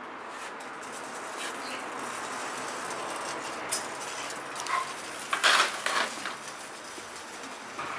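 Two-month-old American Bully puppies moving about: a few short scuffles and rustles in the middle, the loudest a little past halfway, over a steady outdoor background hiss.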